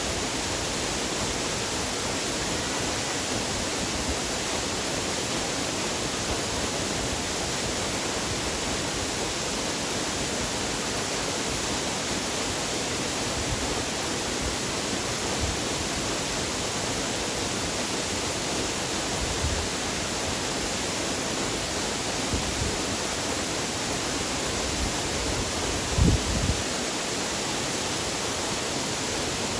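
Waterfall rushing with a steady, even roar of falling water, with a short low thump near the end.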